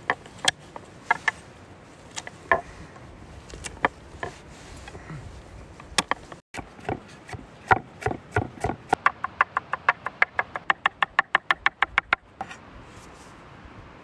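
Chef's knife chopping garlic cloves on a wooden cutting board: a few separate cuts at first, then quickening into rapid chopping of about five strokes a second that stops near the end.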